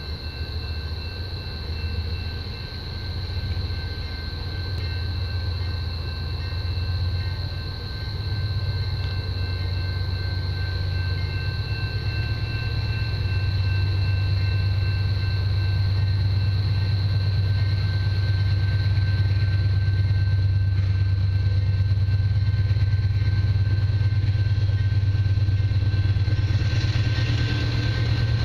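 Canadian Pacific diesel locomotives approaching, a low engine rumble growing steadily louder, with steady high-pitched tones over it throughout.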